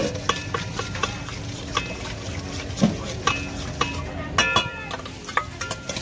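Metal spoon clinking and scraping against a bowl in irregular strokes as a spicy seafood salad is tossed, with a brief flurry of louder clinks about four and a half seconds in.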